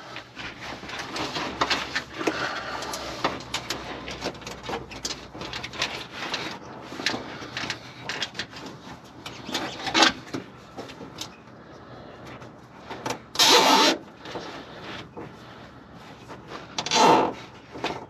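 Handling noise from work under a car: scattered clicks, rubbing and scraping as a power wire is pulled and fastened along the underside of the floor pan. Two louder scrapes come about thirteen and seventeen seconds in.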